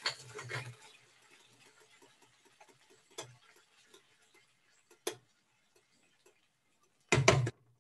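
A few light clicks from a stainless steel frying pan being lifted and tilted over an electric coil burner, then a louder clatter of knocks near the end as it is set back down on the coil.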